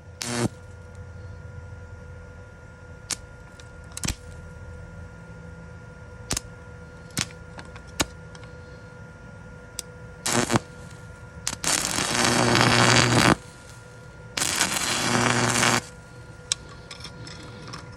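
Arc welder welding a broken steel golf cart front axle piece: a few sharp ticks, then three bursts of arc crackle, the longest nearly two seconds, over a steady faint hum.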